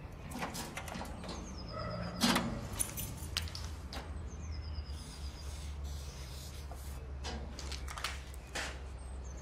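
Quiet stairwell sound with a steady low hum and scattered small clicks, knocks and scrapes of someone handling a bank of metal mailboxes, the loudest knock about two seconds in. A faint high chirp stepping down in pitch comes twice.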